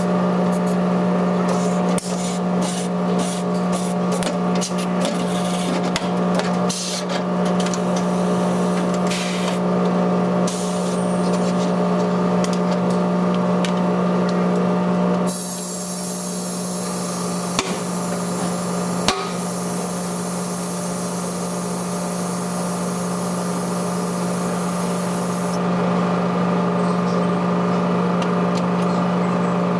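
Tire-service machinery running with a steady hum, with quick sharp taps and clicks over it for the first ten seconds or so and a couple of single knocks later.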